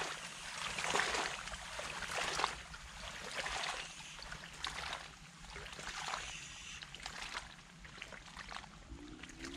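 River water running and splashing, swelling and easing roughly once a second. A low, steady hum starts near the end.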